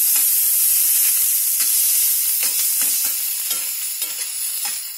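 Chopped onion, ginger and garlic sizzling in hot oil in a kadai, with a few short clicks scattered through. The sizzle eases a little toward the end.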